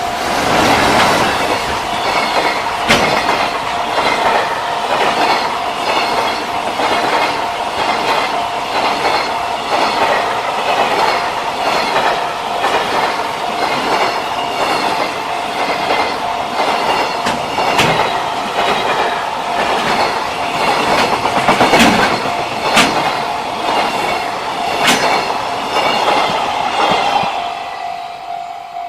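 Long JR Freight train passing over a level crossing, its wheels clattering steadily over the rail joints for nearly half a minute, with a few sharper knocks, fading near the end. The level-crossing warning bell rings steadily underneath.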